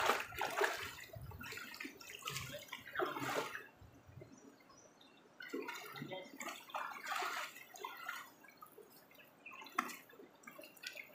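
River water splashing and sloshing in irregular splashes, now louder, now softer.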